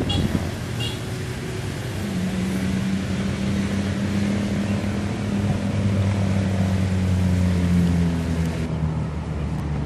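Outboard motor on an inflatable rubber boat running at a steady speed. Its low, even hum comes up about two seconds in and holds.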